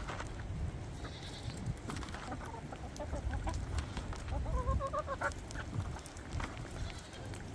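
Farm animals calling, with a wavering, bleat-like call about four and a half seconds in and a shorter one before it. Wind rumbles on the microphone throughout.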